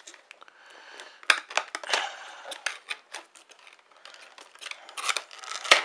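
Small cardboard retail box being opened by hand, its sealing tape picked at and its flaps pried: a string of crackling and clicking paper-and-tape noises, busiest a little after a second in and again near the end, where a sharp snap is the loudest sound.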